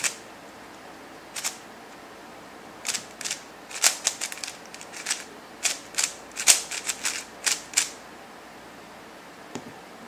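Plastic layers of a QiYi Warrior W 3x3 speed cube clicking as they are turned by hand: a couple of single turns, then a quick run of clacks from about three to eight seconds in.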